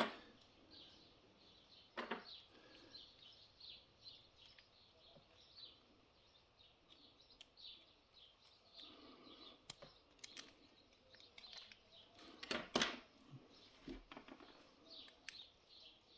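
Faint clicks and taps from small parts of a disassembled Miwa lock cylinder being handled as its pins are taken out, the loudest pair of clicks about twelve and a half seconds in. Faint short bird chirps repeat in the background throughout.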